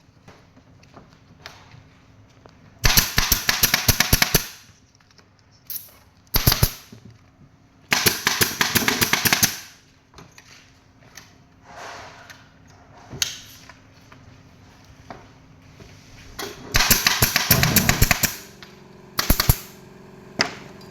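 A woodworking power tool firing in bursts of fast, sharp, rapid strikes, about six bursts of up to a second and a half each, with a faint low steady hum between them.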